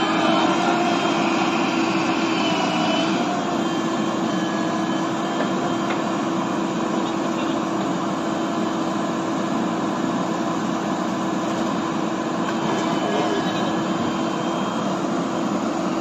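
A JCB backhoe loader's diesel engine runs steadily under load, with a constant drone, while the backhoe arm digs and lifts a bucket of soil. The engine is a little louder for the first three seconds, then settles.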